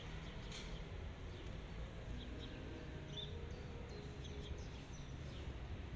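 Outdoor background with a steady low rumble and short, scattered bird chirps.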